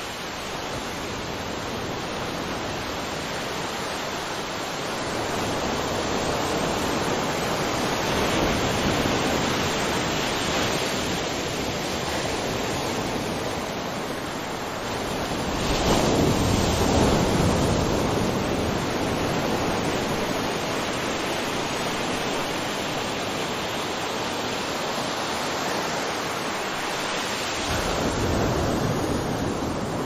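Steady rushing of a waterfall, a continuous noise that swells and eases in slow surges, loudest about sixteen seconds in.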